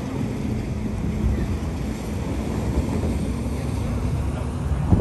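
A motor vehicle engine running with a low, steady rumble and hum, mixed with wind buffeting the microphone.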